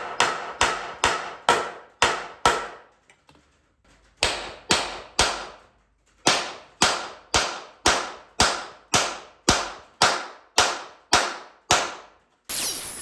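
Hammer striking a cold chisel against a steel frame rivet head, ringing metal blows at about two a second in three runs with short pauses, to break the rivet off the truck frame. A hissing noise starts near the end.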